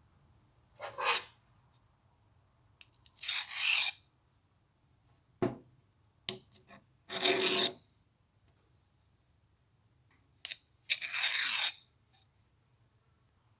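A hand file rasping across the metal of an old step punch in four separate strokes, with a few short clicks and knocks between them.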